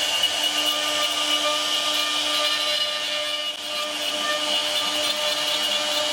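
CNC router cutting wood: a steady high spindle whine over hissing cutting noise, with a brief drop in level about three and a half seconds in.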